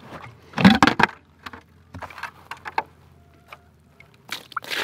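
A plastic bucket with a metal handle being handled: a clatter about half a second in, then a few scattered knocks. Near the end, water starts pouring from the bucket into a rubber feed pan.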